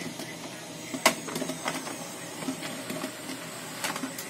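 HP LaserJet Pro M132 scanner's scan-head carriage travelling across the bed under a motor taken from a donor unit: a steady whirr with scattered clicks, one louder about a second in. The bar runs properly, without the crackling and buzzing of the original fault.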